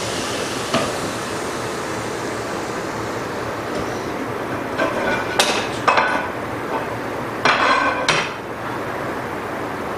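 Parts and tools being handled and set down on a workbench: two clusters of hard knocks and clatter, about five and about seven and a half seconds in, over a steady background hiss.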